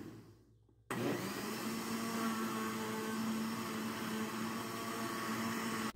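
Electric countertop blender running on a liquid cake batter of eggs, sugar, oil and water. It winds down and stops just after the start, then is switched on again about a second in and runs with a steady hum.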